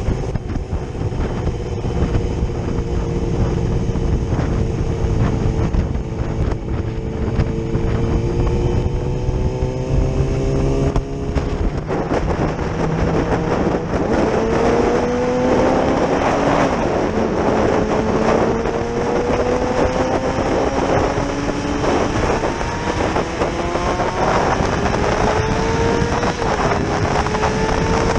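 Yamaha R6 inline-four sportbike engine under way, heard from a camera on the bike with wind noise on the microphone. The engine note rises slowly for the first ten seconds or so, then pulls harder and louder, climbing in pitch and dropping back at gear changes twice in the second half.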